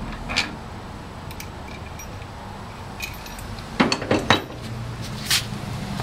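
A steel wrench clinking and clanking against the metal workings of a Rockwell table saw being taken apart: a single clink early, then a quick run of sharp metallic clanks about four seconds in and one more a second later.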